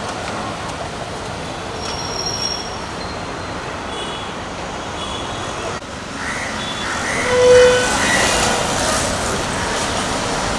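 Street traffic noise with a few short vehicle horn toots; one louder toot comes about seven and a half seconds in.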